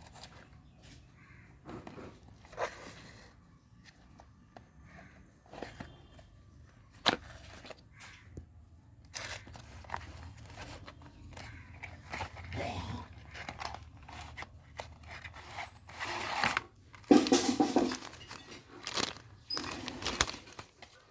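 Irregular scraping, crunching and clicking handling noises, with a louder, denser stretch of rustling shortly before the end.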